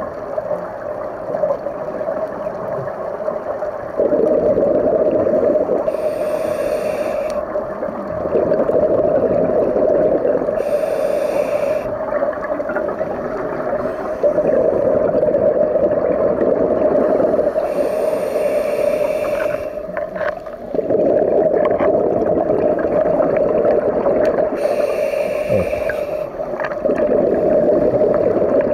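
Scuba regulator breathing underwater: four short hisses as air is drawn through the demand valve, each followed by a longer gurgling rush of exhaled bubbles, over a steady hum.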